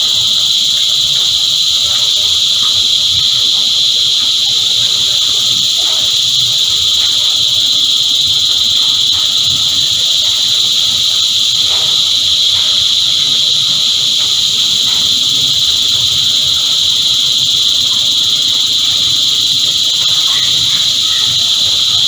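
Cicada chorus: a loud, steady, unbroken high-pitched drone.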